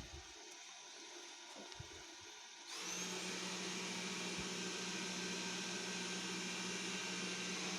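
Xiaomi Mijia 1C robot vacuum's suction fan switching on about a third of the way in: a brief rising whine as it spins up, then running steadily with a constant hum. Before it starts there are a couple of low knocks.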